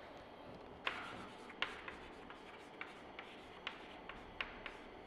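Chalk writing on a chalkboard: a string of faint, sharp taps and short scrapes as each letter is drawn, the first tap about a second in the loudest.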